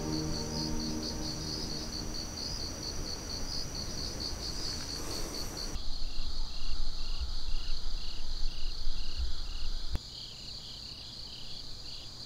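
Insects chirping in rhythmic pulses, about three a second. A little before halfway through it switches to a lower, slower insect pulsing, about two a second, over a low wind rumble.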